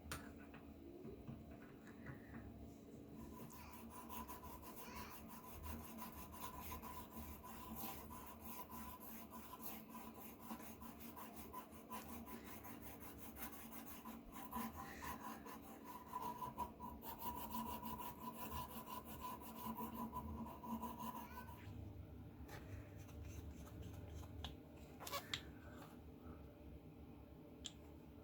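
Steady run of quick rubbing and scraping strokes on a metal razor part, starting about three seconds in and stopping a little after twenty seconds, over a faint steady hum.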